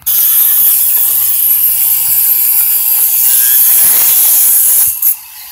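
Angle grinder cutting a groove into a stucco wall, down to the brown coat. A loud, steady, hissing grind that starts abruptly and stops about five seconds in.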